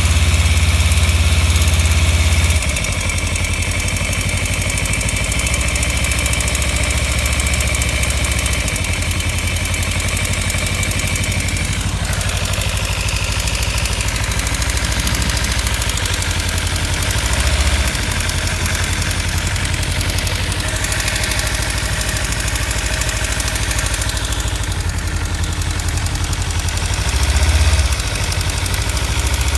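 2015 Kawasaki Ninja 300's parallel-twin engine idling with a fast, steady ticking rattle on top, a noise that comes on once the bike is warm. The owner suspects a failing cam chain tensioner or loose exhaust header bolts.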